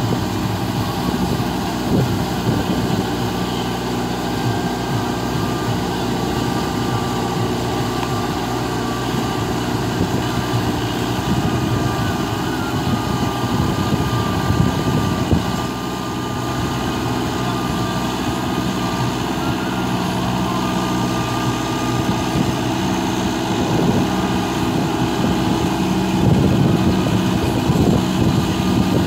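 New Holland 7056 four-wheel-drive tractor's diesel engine running steadily under load as it drives a rotavator through wet mud.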